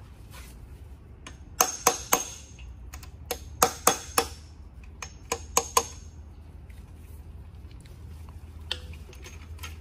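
Sharp metal-on-metal clinks from hand tools on the connecting rod cap and block of a Nissan SR20DET engine being torn down. They come in three quick groups of three or four, each ringing briefly.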